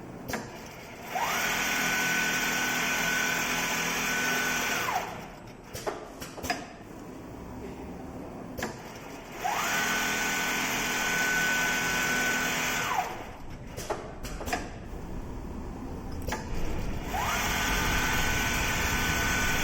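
Richpeace automatic sewing machine stitching a pattern in three runs of about four seconds each: the motor's whine rises in pitch as it speeds up, holds steady while sewing, and falls as it stops. Between runs it goes quieter, with a few clicks.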